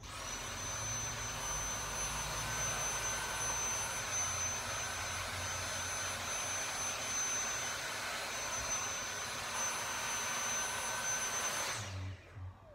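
Vacuum cleaner switched on, running steadily with a high whine over its rushing airflow, then switched off near the end, the motor winding down with a falling tone.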